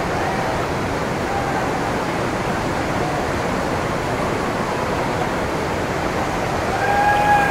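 Steady roar of the Hogenakkal waterfall and the fast, churning river water around it. Near the end a long tone sounds over the roar.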